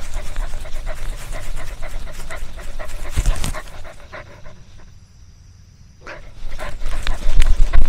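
A dog panting in a quick, even rhythm, which stops about four and a half seconds in. Near the end come loud low rumbling and knocks.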